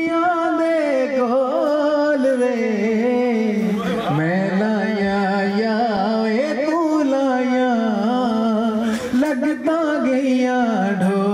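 A man singing a Punjabi song into a microphone, in long drawn-out notes that waver and slide in pitch, with a short breath between phrases every few seconds.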